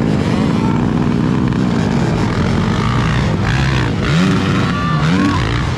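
Several motocross dirt bike engines revving as the bikes race round the track. Their pitch rises and falls with the throttle, with sharp climbing revs in the second half.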